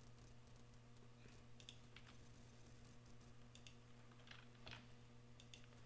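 Near silence: a steady low electrical hum with a few faint, scattered clicks from someone working a computer.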